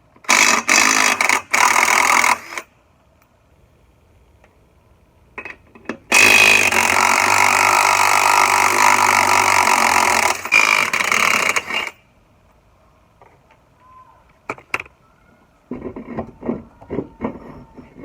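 Power tool run in several short bursts, then in one long run of about six seconds while the Jeep's wheel is being taken apart, followed by scattered clicks and quick rattles near the end.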